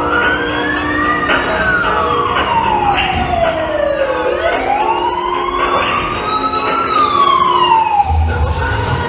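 Wailing siren sound, its pitch rising and falling slowly through about two cycles, played for a firefighters' dance number. About eight seconds in, a beat and a steady tone come in as the dance music starts.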